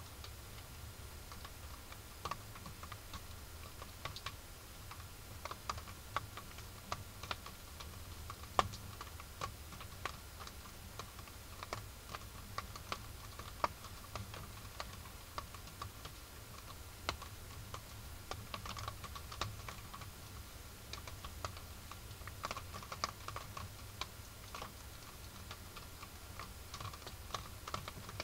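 Faint, irregular clicks and scratches of raccoons foraging on a dirt coop floor, over the trail camera's steady low hum and hiss.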